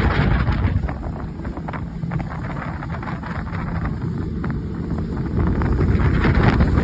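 Wind buffeting the microphone in an open boat: a steady low rumble that eases off in the middle and builds again near the end.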